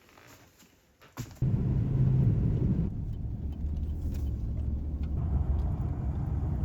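Low, steady rumble of a car driving, starting abruptly about a second and a half in.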